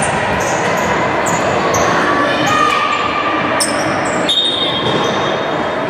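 Basketball game noise in a large, echoing sports hall: players' voices and ball bounces, then a referee's whistle blown in one long steady blast about four seconds in.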